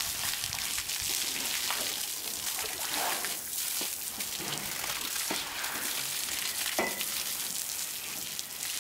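Water from a hose spraying onto an elephant and splashing onto the ground: a steady hiss with scattered splashes.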